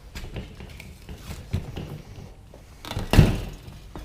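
Seat foam being pulled and worked free of a truck seat's metal spring frame: irregular rustling and scraping, with a loud thump about three seconds in.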